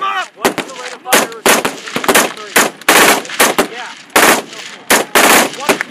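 Machine-gun fire in short bursts mixed with single shots, several rounds a second, with the longest bursts about three, four and five seconds in.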